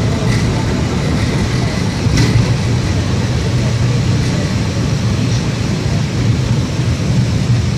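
A tram running along its rails, heard from inside the car: a steady low rumble with noise from the wheels on the track, and a brief click about two seconds in.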